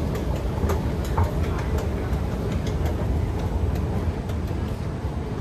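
Singapore MRT train running: a steady low rumble with faint scattered clicks and rattles over it.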